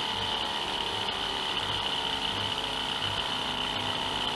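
Small Stirling machine running by itself as a hot gas engine, its head heated to a glow: a steady mechanical running sound with a low pulse about twice a second.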